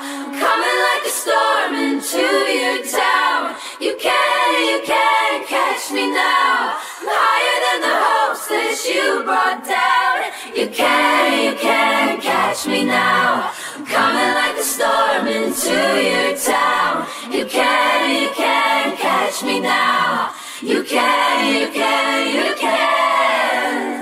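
Isolated a cappella vocal track: a female lead voice with layered, choir-like harmony vocals and no instruments.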